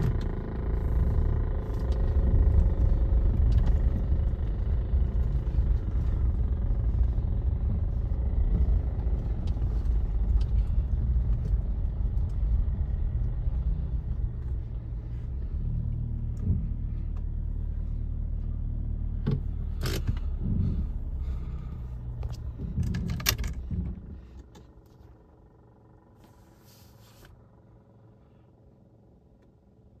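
A motor vehicle's engine running with heavy low road rumble while driving, with a few sharp clicks near the end. About 24 seconds in it stops and falls away to faint quiet.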